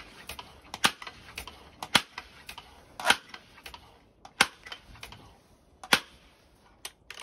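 Benjamin 397S pump air rifle being cocked and dry-fired over and over: a run of sharp metallic clicks, a loud one every second or so with lighter clicks of the bolt between. The gun is being fired to empty air still held in its valve, which the owner blames on a weak hammer spring.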